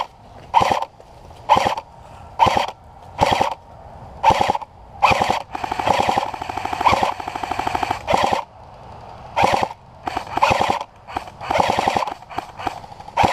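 Airsoft electric gun firing: single shots and short bursts at uneven intervals, with longer rapid full-auto strings a few seconds in and again near the end.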